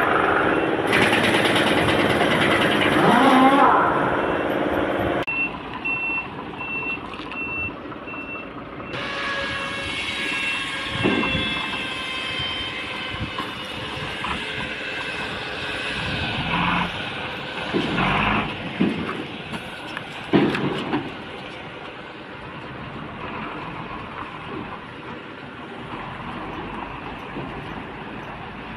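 Reversing alarm beeping steadily about twice a second for a few seconds, over the running diesel engine of a Ford tractor unit moving with an empty car-carrier trailer. A few loud clanks and hisses come later, as the truck and trailer move off.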